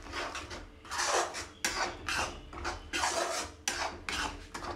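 Metal spatula scraping and stirring thick tomato masala around a metal kadai, in repeated scraping strokes one every half second or so.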